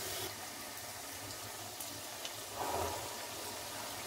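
Pinwheel samosas deep-frying in hot oil in a kadai: a steady sizzle, briefly louder about two and a half seconds in.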